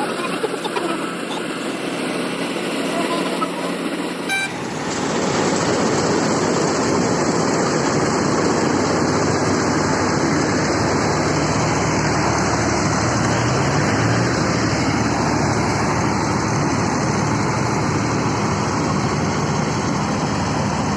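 Combine harvester running steadily, its engine and threshing machinery making a dense, even mechanical noise while cutting rice. It jumps abruptly louder about four and a half seconds in, then holds steady.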